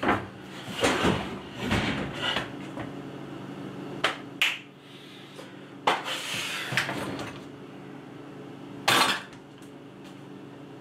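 Kitchen clatter: a roasting pan set down on a wooden cutting board, then a scatter of sharp knocks and clinks of cookware, the loudest about a second in and near the end. A steady low hum runs underneath.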